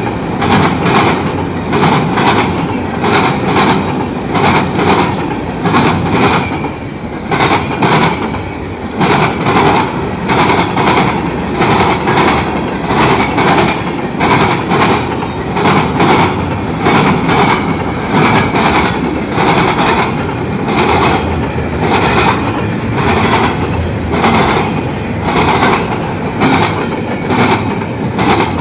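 Freight train cars rolling past, their wheels clattering over the rail joints in a steady rhythm of about two clacks a second.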